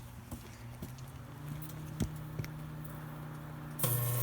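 Microwave oven running with tinfoil inside: a steady low hum with a few sharp crackles from the foil sparking. Near the end a loud buzzing hiss suddenly breaks out as the foil arcs and burns.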